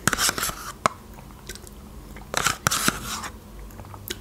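Close-up eating sounds of yogurt eaten with a spoon: the spoon scraping and tapping in a plastic yogurt cup, and wet mouth sounds. They come in two short clusters, at the start and about two and a half seconds in, with a sharp click just under a second in.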